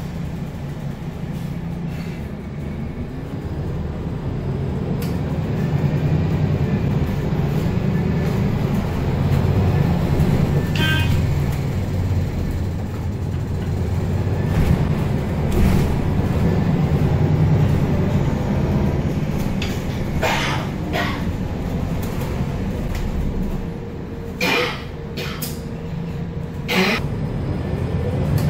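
Cabin sound of a Euro 6 MAN NL323F A22 diesel bus under way: a steady low engine drone that swells and eases with the driving. Several short sharp noises come in the second half.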